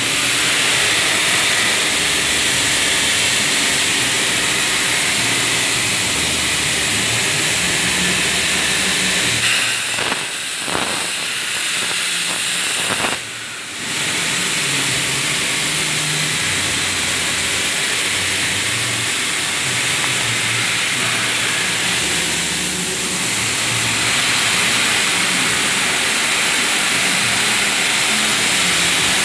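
100 A plasma cutter arc hissing loudly and steadily as the CNC torch cuts steel plate, with a low hum beneath. About 13 seconds in the hiss drops away briefly, then comes back.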